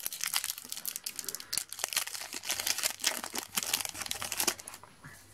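A foil trading-card booster packet crinkling and tearing as it is pulled open by hand: a dense run of irregular crackles that stops shortly before the end.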